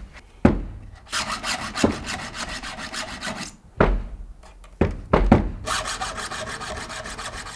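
A round file being stroked quickly back and forth against a chainsaw chain's cutter teeth: two runs of rapid rasping strokes. Heavy knocks come about half a second in, near four seconds and around five seconds.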